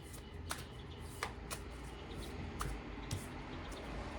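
Tarot cards being handled and shuffled by hand: about six light, sharp card snaps, irregularly spaced.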